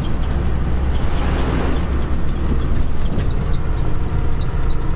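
Heavy truck driving on the highway, heard from inside the cab: a steady, deep rumble of engine and road noise.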